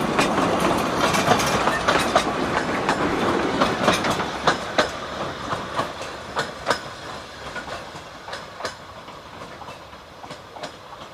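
Narrow gauge train coaches rolling past and away, wheels clicking irregularly over the rail joints. The rumble and clicks fade steadily as the train recedes.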